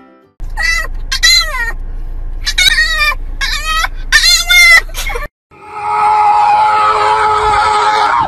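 A small white dog howling, a run of five wavering, pitch-bending howls over about five seconds. After a brief pause a steady hissing noise with a held tone fills the last few seconds.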